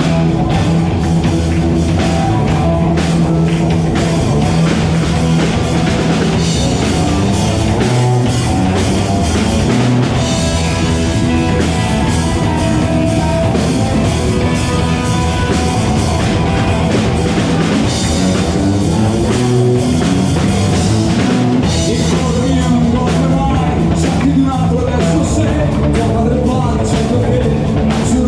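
Live rock band playing, with drum kit, bass and electric guitar at a steady loud level.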